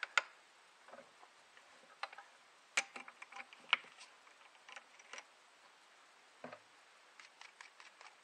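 Scattered small clicks and clinks of metal hand tools and the finished 5/16-inch shear bolt being handled at a stopped lathe, several sharper ticks near the start and about three to four seconds in.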